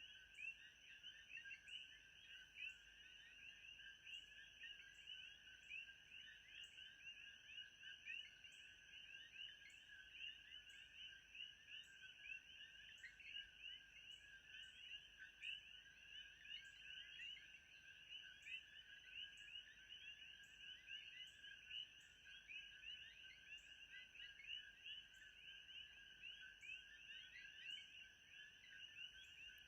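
Faint, steady ambience of a dense chorus of short chirping calls, with a faint high tick repeating a little under once a second.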